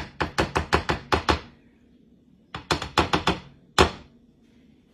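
Rapid hard knocking in a kitchen, about seven knocks a second in two short runs, then one louder single knock near the end.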